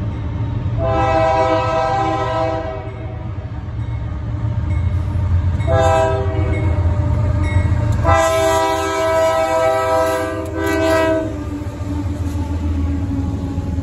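Freight locomotive's multi-tone air horn sounding four blasts: three long and a short last one, ending about eleven seconds in. Under it runs the steady low rumble of the approaching train, whose two GE diesel locomotives pass close by near the end.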